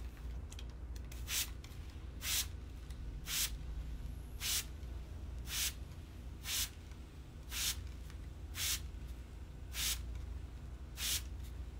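Hand-pumped spray bottle of water squeezed ten times, one short hiss about every second.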